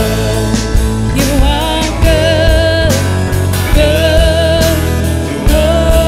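Live worship band playing a song: a voice sings long, wavering notes over electric guitar, bass, keyboard and drums with a steady beat.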